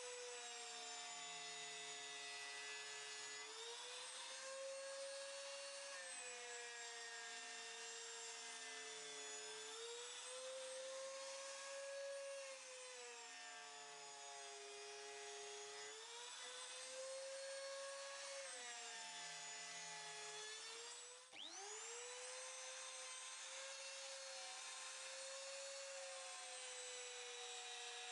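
Small electric power tool motor running, its pitch sagging and recovering every five or six seconds as it is worked under load. About two-thirds of the way through it cuts out briefly, then spins back up with a quick rising whine.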